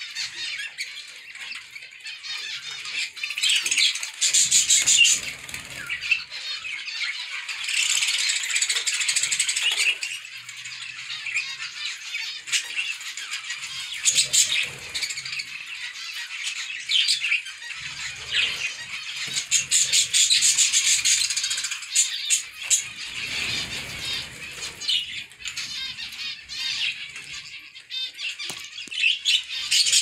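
A flock of zebra finches calling, many short high chirps overlapping into a busy chatter that swells in bursts, with wings flapping as birds take off.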